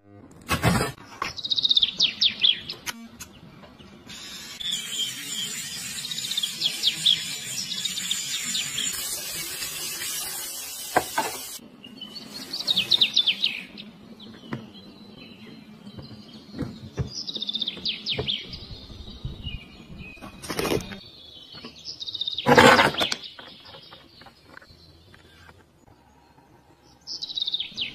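Songbirds chirping in quick falling twitters that recur every few seconds, with a steady hiss from about four to eleven seconds in and a few sharp knocks, the loudest about two-thirds of the way through.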